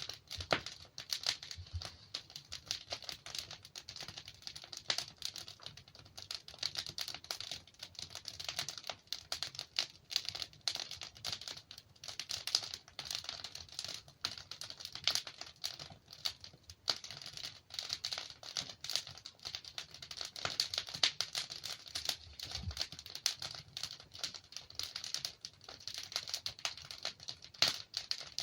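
Wood fire burning in a fireplace: a steady dense crackle with frequent sharp pops from the burning logs.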